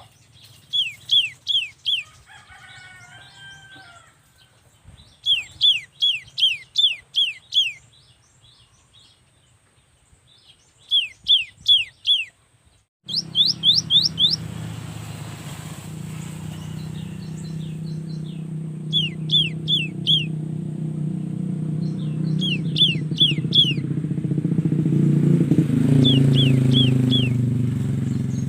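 Cinereous tit singing bursts of four to six quick, falling whistled notes, repeated every few seconds. About halfway through, a motor engine starts running steadily under the song and grows a little louder near the end.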